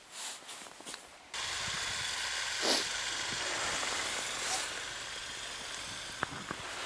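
Steady rushing hiss, like wind on the microphone, that starts abruptly about a second in, with a few faint knocks.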